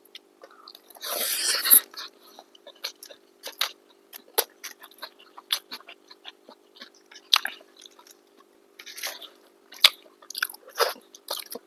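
Close-up eating sounds of chicken biryani and kebabs being chewed: a string of short wet smacks, clicks and crunches. About a second in there is one longer, louder noisy burst.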